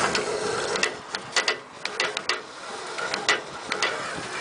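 Irregular sharp metal clicks and knocks, about a dozen in a few seconds, from bungee rigging and harness gear being handled.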